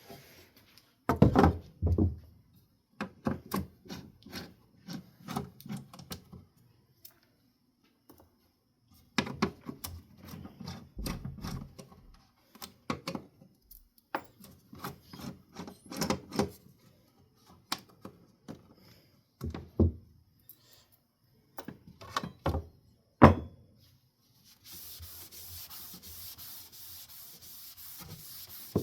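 A wooden cane ceiling-fan blade being handled and wiped clean: irregular knocks, clunks and rubbing as it is moved and wiped. Near the end this gives way to a steady scrubbing hiss of a wipe rubbing over the blade.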